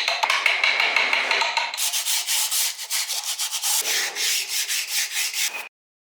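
Wood being sanded by hand in quick back-and-forth strokes, about five a second. The strokes turn hissier about two seconds in, and the sound cuts off abruptly near the end.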